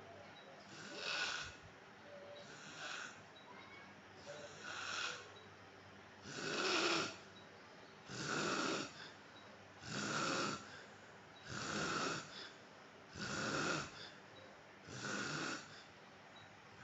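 A man snoring in his sleep: a rasping snore on each breath, about one every one and a half to two seconds, nine in all, growing louder about halfway through.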